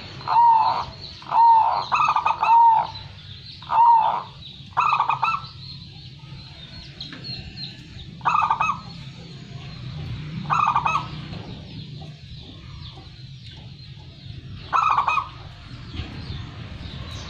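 Local-strain zebra dove (perkutut) cooing: a quick run of repeated arching coos over the first five seconds, then three shorter cooing phrases spaced a few seconds apart.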